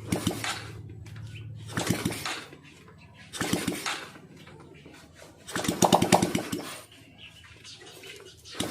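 Honda XRM 125 carburetted single-cylinder motorcycle engine being cranked in four short bursts, the longest about six seconds in, trying to start without catching.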